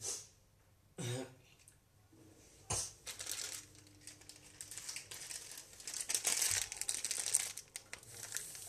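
Crinkling and rustling of packaging being handled: a few short bursts in the first three seconds, then a longer stretch of continuous rustling until near the end.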